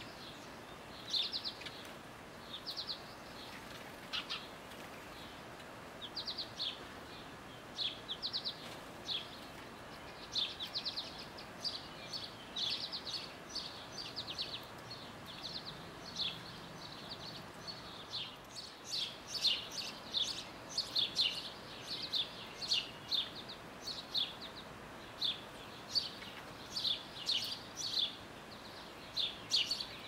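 Small songbirds chirping: short, high chirps in quick clusters every second or so, growing busier about two-thirds of the way through, over a faint steady background hiss.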